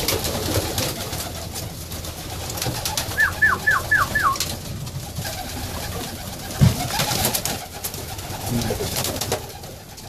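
Flock of white Budapest pigeons cooing inside a small wooden loft, with wings flapping now and then as birds fly between the perches. About three seconds in comes a quick run of five short falling squeaks.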